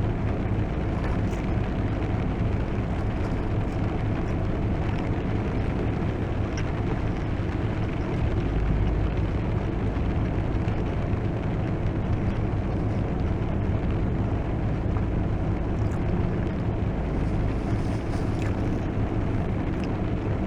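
Heavy rain drumming steadily on a car's roof and windshield, heard from inside the cabin as a continuous rumbling hiss.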